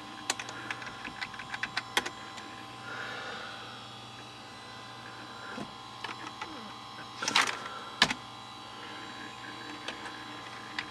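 Computer keyboard keys clicking in quick runs, a cluster in the first two seconds and another, louder, a little past the middle, over the steady hum of a running desktop PC.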